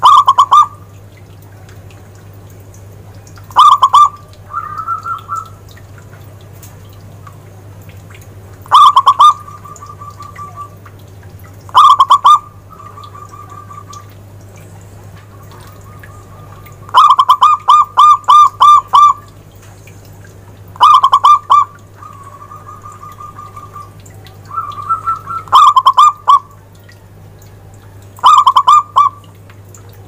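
Zebra dove (perkutut) cooing: about eight loud bursts of quick staccato notes, one a longer run just past the middle, with quieter trilled notes between them. A steady low hum runs underneath.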